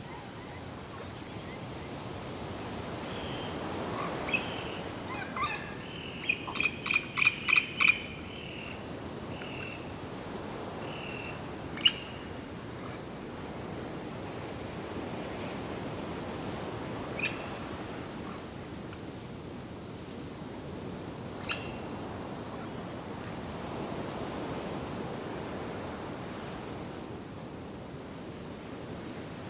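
Steady wash of sea surf with a bird calling over it: a quick run of about six sharp calls a few seconds in, then single calls now and then.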